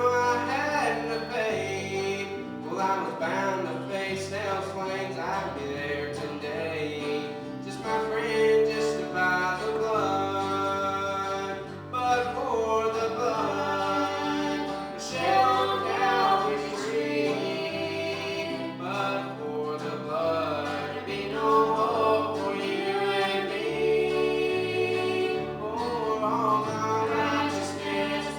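Gospel music: voices singing together over instrumental accompaniment with a moving bass line.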